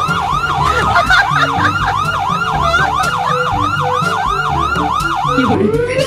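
Fake police siren, an electronic yelp warbling fast at about three cycles a second, over background music. Near the end it switches to a lower, slower warble.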